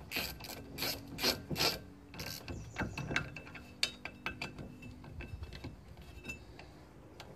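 Socket ratchet clicking in short runs as bolts are wound into a rusty rear hub flange to press the hub out. The clicks are loudest in the first couple of seconds, then go on as quicker, fainter ticks.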